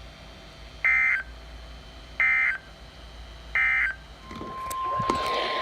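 Emergency Alert System SAME data bursts: three short, evenly spaced buzzy digital chirps, the end-of-message code that closes a NOAA Weather Radio alert. About four seconds in, a steady single-pitch alert tone, the weather radio's 1050 Hz warning tone, starts over radio hiss.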